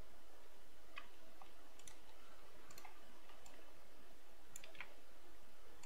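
Computer mouse clicking about eight times at uneven intervals, over a steady low background hum.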